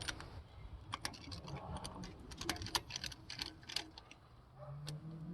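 Socket ratchet clicking in short, irregular runs of sharp ticks as spark plugs are run in and snugged down.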